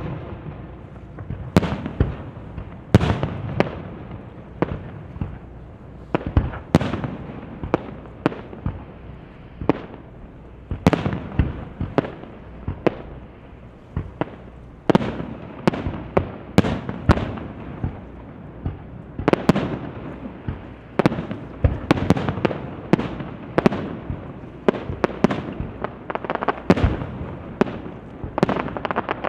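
Fireworks display: a rapid, irregular series of aerial shell bursts, booms and sharper bangs, some coming in quick clusters, each followed by a rolling echo.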